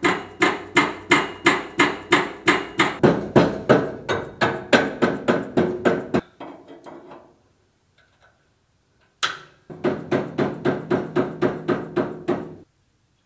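Hammer blows on the steel tubes of an engine cradle, fast and even at about three to four strikes a second, each ringing briefly, knocking the tubes into position before welding. The blows stop about six seconds in; a single sharp knock follows, then a second quick run of blows that stops shortly before the end.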